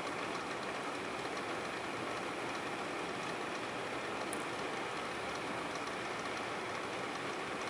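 Steady background hiss with no distinct event, plus a faint click about four seconds in.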